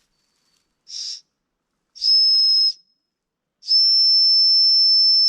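Small plastic survival whistle from a FLISSA multitool blown three times: a faint breathy puff, then a short blast and a long blast, each a single high, steady shrill tone.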